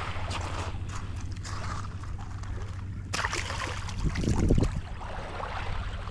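Small waves washing and trickling among rocks at the water's edge, with wind rumbling on the microphone and a few light clicks. About four seconds in, a louder low rumble rises briefly.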